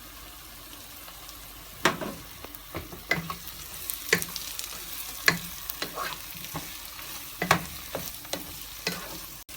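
Chopped tomatoes sizzling in hot oil with fried onions and spice paste, while a utensil stirs them and knocks and scrapes against the pan. The sizzle is steady; the knocks start about two seconds in and come irregularly, every half second to a second.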